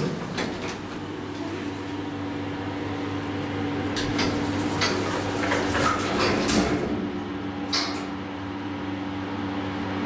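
Footsteps and a few sharp clicks and knocks on a hard floor over a steady low hum, with the knocks clustered around the middle.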